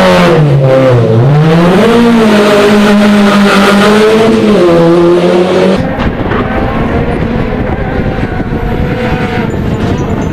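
Rally car engine revving hard, its pitch rising and falling as the driver goes up and down through the gears and lifts for corners. A little over halfway through the sound cuts abruptly to a quieter, noisier rush with only a faint engine note.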